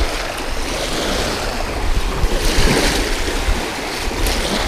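Wind-driven lake waves splashing and breaking against a rocky shore, with wind buffeting the microphone as a low rumble; one wave breaks louder about two and a half seconds in.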